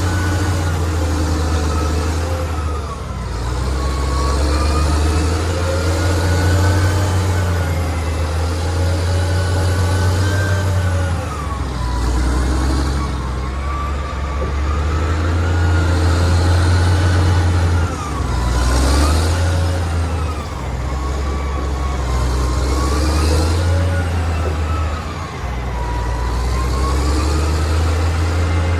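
Excavator's diesel engine running under load, with a thin hydraulic whine that rises and falls in pitch as the machine works.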